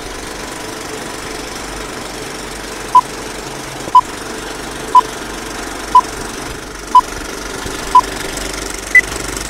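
Old film-leader countdown sound effect: a steady film projector rattle with a short beep on each count, six beeps a second apart at one pitch, then a single higher beep about a second later.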